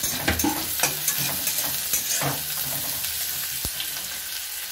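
Chopped onions and green chillies sizzling in hot oil in a metal kadai, stirred with a metal spatula that scrapes and knocks against the pan several times.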